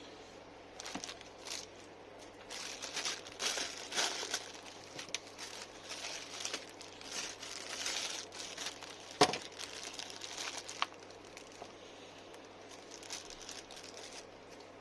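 Irregular crinkling and rustling of something being handled, with one sharp click about nine seconds in.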